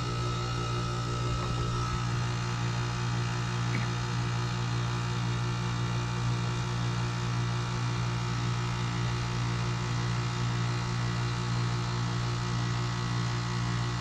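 Ruud heat pump outdoor unit's compressor running with a steady hum, its outdoor fan off so the coil will begin to frost.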